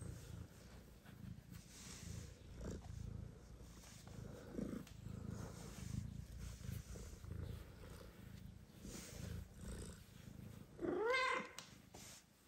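Mother cat purring steadily while being petted, with a short low call about four and a half seconds in and one loud meow near the end that rises and then falls in pitch.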